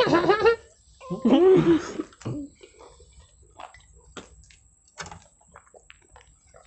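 A person's wordless voice in two short stretches with wavering pitch, then faint scattered small clicks and rustles.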